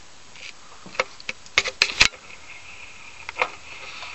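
Sharp cracks and pops from a rat's bones breaking in the coils of a constricting red-tailed boa: several quick cracks a second or two in, the loudest about two seconds in, then one more near the end.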